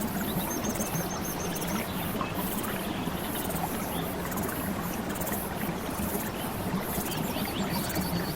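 Steady running water as a continuous rushing ambience, with a couple of quick runs of short high chirps, about eight in a second, near the start and near the end.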